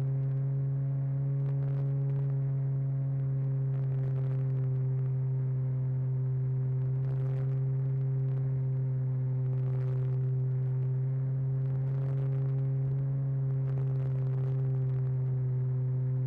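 Steady drone of a radio-controlled airplane's motor and propeller in level cruise, picked up by a camera mounted on the airframe: one low, unchanging pitch with a few fainter overtones, and a rush of airflow noise that swells briefly every few seconds.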